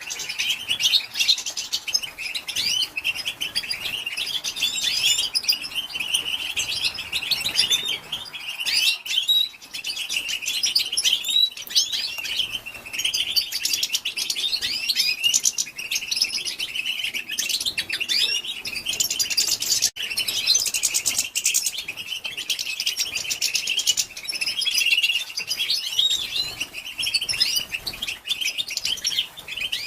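Female European goldfinch twittering: a dense, continuous stream of quick high chirps and trills with only brief breaks. This is the soft 'batbata' chatter that keepers play to stir male goldfinches into song.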